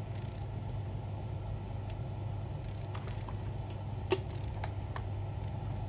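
Steady low background hum with a few faint clicks and taps, the sharpest about four seconds in.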